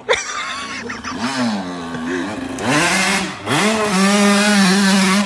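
Dirt bike engine revving hard, the revs rising and dipping a few times and then held high near the end. A sharp crack right at the start.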